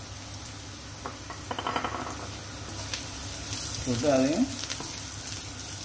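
Food sizzling in hot oil in a pan as it is stirred, a steady frying hiss with scattered light clicks.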